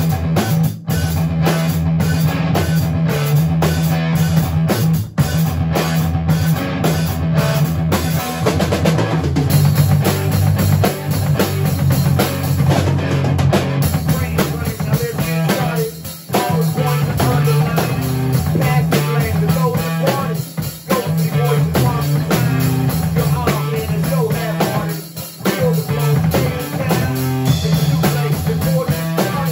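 A live rock band rehearsing: a drum kit and an electric guitar through a Marshall amplifier playing a rock song together.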